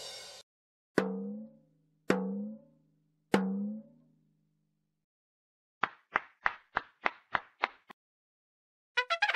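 Cartoon-style comedy sound effects: three separate struck hits about a second apart, each with a low ringing tone that bends and fades, then a quick run of about eight short woody knocks like a wood block, and a faster patter of clicks starting near the end.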